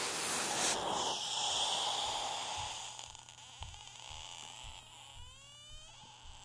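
Water sizzling on hot iron and flashing to steam. A loud hiss cuts back sharply about a second in, then a fading sizzle runs on with scattered low pops and a brief rising squeal about five seconds in.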